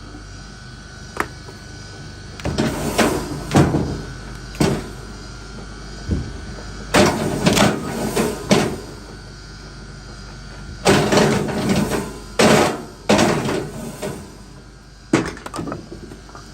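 Clusters of sharp knocks and clatters, several at a time every few seconds, the kind of sound made when wood is struck or handled.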